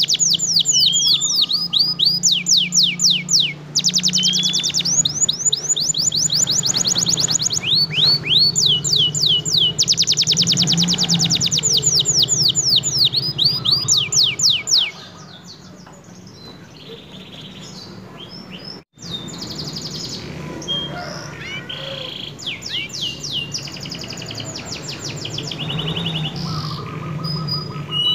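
Domestic canary singing a long, fast song of rapid downward-sweeping trilled notes, loud for about the first fifteen seconds, then softer and more scattered, with a brief break in the sound. A steady low hum runs underneath.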